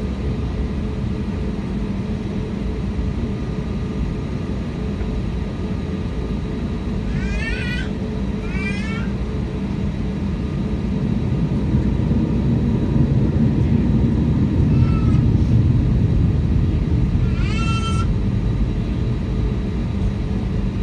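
Steady rumble inside the cabin of an Airbus A320neo, with a few constant tones in it, swelling somewhat in the middle. Three short, high, wavering cries rise above it: two close together about seven seconds in, one more near the end.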